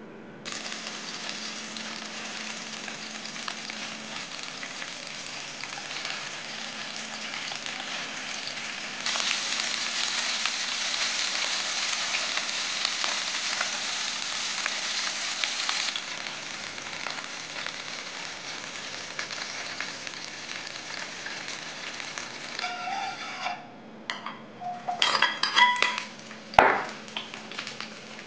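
Chicken wings frying in oil in a nonstick pan, a steady sizzle that turns louder for several seconds in the middle. Near the end come ringing metal clinks and knocks of a ladle against a wok.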